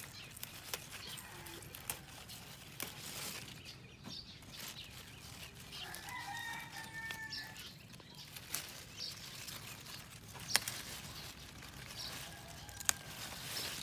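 Lettuce leaves rustling and snapping as they are picked by hand, with a few sharp snaps near the end. A rooster crows faintly about halfway through.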